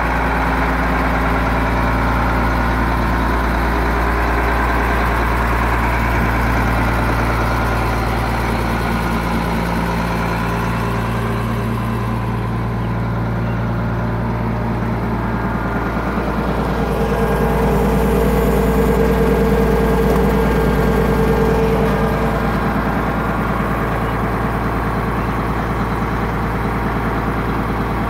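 Case IH 7130 Magnum tractor's six-cylinder turbo diesel idling steadily, with a whine that swells and fades for a few seconds past the middle.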